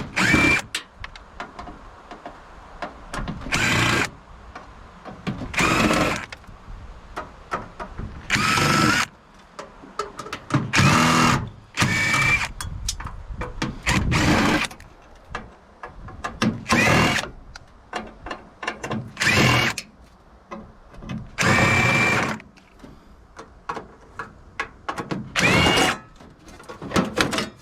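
Power drill running in about a dozen short bursts, each spinning up in pitch, with light clicks and handling noise between them, typical of driving screws out of a microwave casing one after another.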